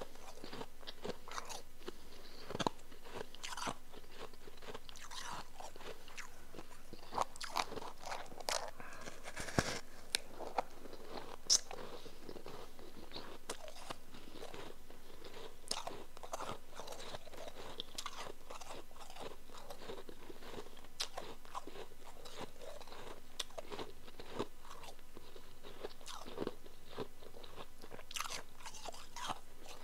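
Close-miked crunching of powdery chunk ice being bitten and chewed: irregular crisp crunches throughout, a few louder ones about eight to twelve seconds in.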